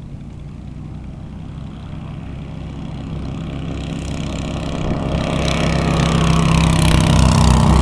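Light aircraft's Valley Engineering Big Twin four-stroke twin-cylinder engine and propeller at takeoff power, growing steadily louder as the plane takes off and comes close by.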